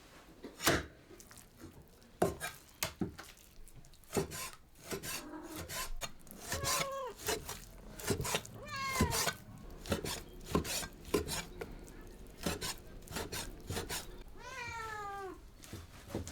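A cat meowing a few times, each call falling in pitch, among the scattered knocks and scraping of kitchen work.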